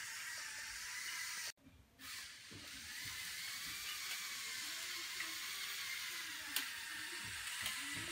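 Electric motor and gearbox of a LEGO Technic model car whirring as it drives across the floor: a faint high whine that rises and falls in pitch with its speed over steady hiss. The sound cuts out briefly about a second and a half in.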